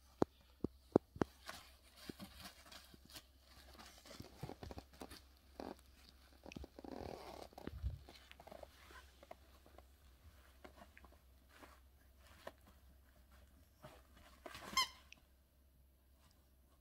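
A bulldog puppy moving and chewing on a puppy pad: a run of sharp clicks, then rustling, and one loud squeak from a rubber squeaky toy near the end.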